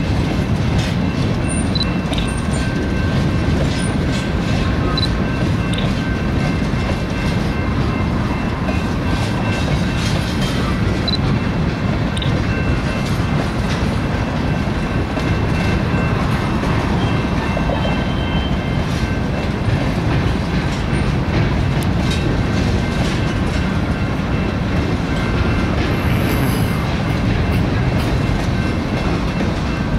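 Freight train of tank cars rolling past: a steady rumble of steel wheels on rail, with scattered clicks as the wheels cross rail joints. Faint high steady squeal from the wheels sits above the rumble.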